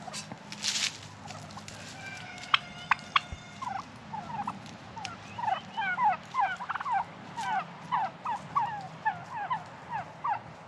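Young heritage turkeys calling: a long run of short, falling chirps, about four a second, starting about four seconds in. Two sharp clicks come just before.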